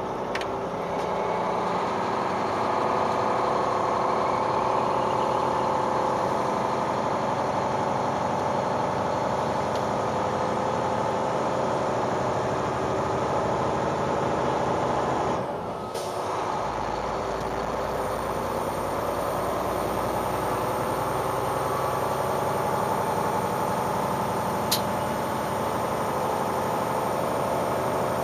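Mack semi truck's diesel engine running under load while hauling a heavy excavator, heard from inside the cab; the engine note rises over the first few seconds as the truck pulls away. The sound dips for a moment about sixteen seconds in, then carries on steadily, with one short click near the end.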